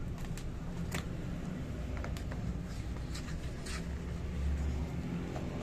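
Glossy magazine pages being handled and turned, heard as a scatter of short paper rustles and clicks over a steady low rumble that swells about four seconds in.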